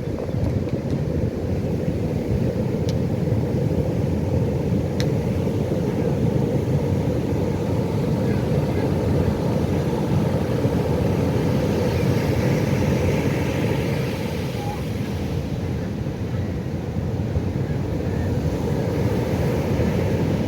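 Pacific Ocean surf: a steady low rumble of waves, swelling a little in the middle and easing off again.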